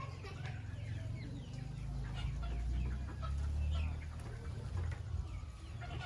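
Chickens clucking: short, scattered calls throughout, over a steady low rumble.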